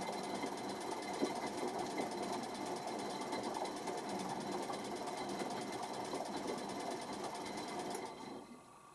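Washing machine's brushed drive motor turning the drum, a steady dense rapid mechanical whirr that stops about eight seconds in. The motor's commutator is damaged and it is failing.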